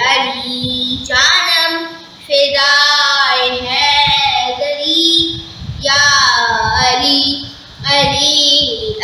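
A young girl singing a manqabat, an Urdu devotional poem in praise of Ali, solo and unaccompanied. She sings in long drawn-out phrases with wavering held notes and short breaths between them.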